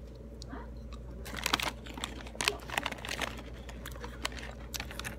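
A foil snack bag crinkling as it is handled, mixed with crunching of a crisp snack. There is a dense flurry of sharp crackles through the middle.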